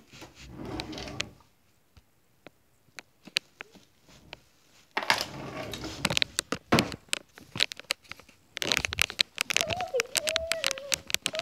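Phone handling noise: rustling and sharp clicks and knocks in bouts, with a quiet stretch of a few seconds between. Near the end a wavering tone comes in over the clicking.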